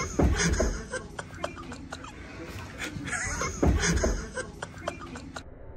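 Bursts of laughter, with knocks and bumps of a person scrambling off a couch onto the floor. The loudest bursts come just after the start and again about three and a half seconds in.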